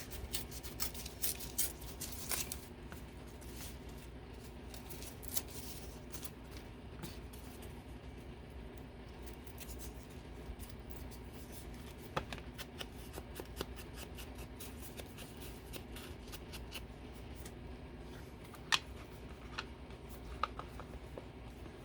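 Paper being handled and cut with scissors: scattered light snips and crinkles, bunched in the first couple of seconds and sparser afterwards, over a steady low hum.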